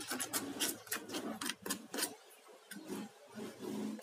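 Chili paste being ground and scraped in a stone mortar (cobek) with a pestle and a silicone spatula: gritty rubbing broken by sharp clicks and knocks. The clicks come thick at first and thin out about halfway through.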